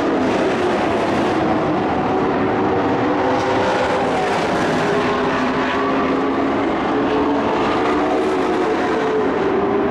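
Race truck engines running on a dirt oval track, a loud continuous drone whose pitch drifts gently up and down as the trucks circle.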